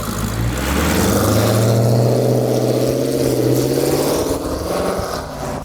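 Car engine accelerating hard: its pitch climbs over the first couple of seconds, holds, then eases off before cutting off suddenly.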